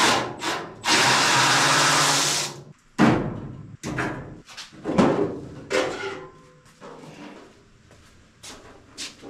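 A handheld power drill/driver runs in one steady burst of about a second and a half near the start, backing out the bolts that hold the Datsun 280Z front fender. Short knocks and clatters of the tool and panel being handled follow.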